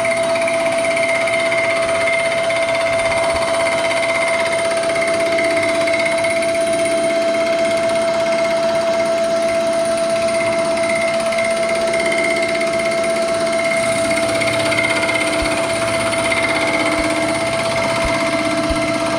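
Vertical milling machine running a large disc cutter across the deck of a 1927 Chevy cast-iron engine block, taking a final facing cut. A steady whine with a constant pitch and no change in level.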